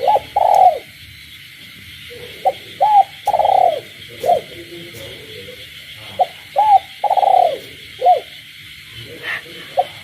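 Spotted dove cooing: a multi-note phrase, short notes around one long drawn coo, repeated about every three and a half seconds. Behind it runs a steady high chorus of frogs.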